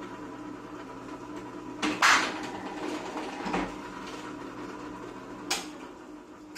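Floor-standing can seaming machine humming steadily as a clear plastic can with a metal lid is raised into its seaming head and sealed. A loud metallic clunk and short rattle about two seconds in, then lighter clunks at about three and a half and five and a half seconds.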